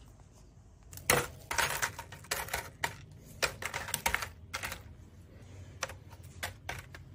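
Tortilla chips crackling and clicking as onion slices are dropped onto them by hand, an irregular run of crisp crunches starting about a second in.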